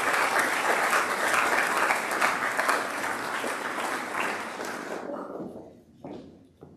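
Applause from a large seated audience of students, dying away about five seconds in, with a couple of faint knocks after it.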